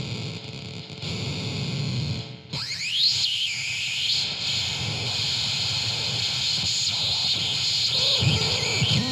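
Harsh noisecore track: a dense wall of distorted noise over a low rumble. It jumps louder about two and a half seconds in, where a sweep rises and falls in pitch, and more swooping sweeps come near the end.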